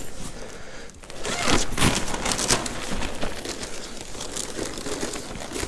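Rustling and crinkling as an insulated food-delivery bag is opened and paper takeaway bags are pulled out of it: a run of quick scratchy rustles starting about a second in.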